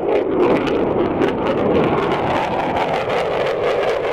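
Fighter jet's engines passing low and close, a loud steady rush of jet noise with a ragged crackle running through it, swelling up at the start.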